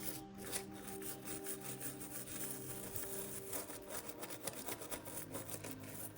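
Toothbrush scrubbing a dirty drone flight controller circuit board wet with isopropyl alcohol: a steady run of quick rasping brush strokes.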